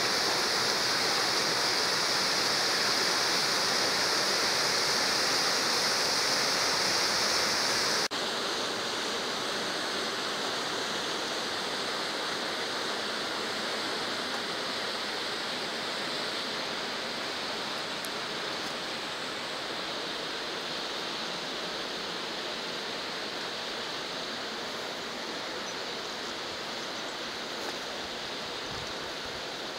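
A shallow mountain river rushes over rocks and small cascades in a steady, even wash. About eight seconds in the sound drops suddenly to a softer level, then slowly fades.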